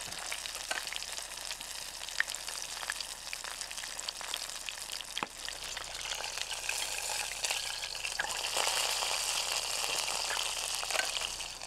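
A piece of chicken deep-frying in grease in a cast iron Dutch oven: a steady high sizzle with scattered pops, a little louder in the second half. The grease is, as the cook suspects, perhaps too hot.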